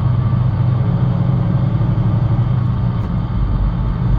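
Diesel truck's engine and road noise from inside the cab, a steady low drone that deepens into a heavier rumble a little past three seconds in.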